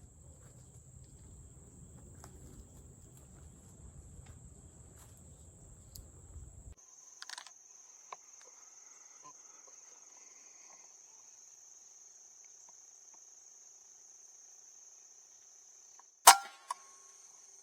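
Steady high-pitched insect trilling, with faint low rumbling for the first several seconds. About sixteen seconds in, a single sharp crack of a pellet air rifle firing at a squirrel.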